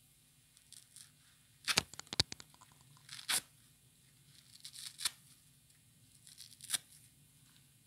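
Soapy kitchen sponges, yellow foam with a green scouring pad, ripped apart by hand in crackly tears: a quick cluster of rips about two seconds in, then single rips roughly every second and a half.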